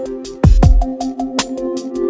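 Electronic dance music with a fast beat of sharp drum hits, deep bass drops and held synth notes.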